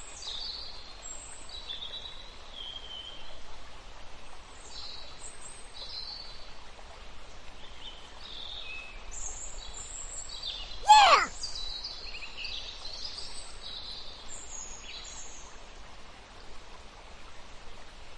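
Outdoor nature ambience with small birds chirping in short high calls over a faint steady hiss. About eleven seconds in comes one loud call that glides steeply down in pitch.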